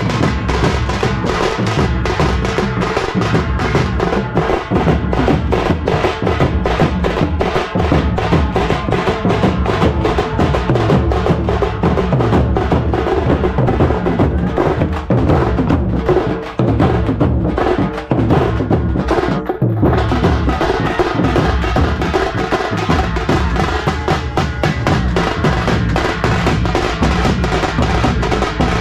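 A troupe of large stick-beaten dhol drums playing together in a fast, steady, driving rhythm, with heavy low booms under sharp stick strokes.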